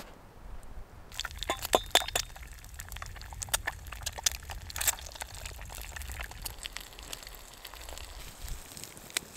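Eggs frying in a small steel pan over a campfire, sizzling and spitting with many irregular sharp crackles that start about a second in.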